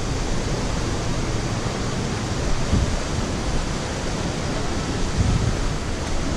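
Fast mountain river rushing over boulders: a steady, even hiss of running water with an uneven low rumble underneath.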